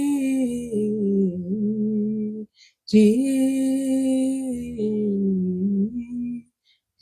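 A solo voice singing a slow worship melody in long, held notes, with no words made out. It sings two drawn-out phrases, with a short break about two and a half seconds in.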